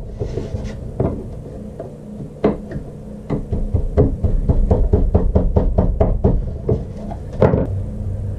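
Wood chisel struck repeatedly with the heel of the hand, paring ultra-high-molecular-weight (UHMW) plastic: a run of dull knocks, sparse at first, then several a second in the second half.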